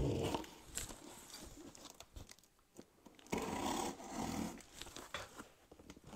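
Box cutter slicing through packing tape along the seams of a cardboard box, with scraping and rustling as the box is handled and turned. The busiest stretch of scraping comes a little past the middle.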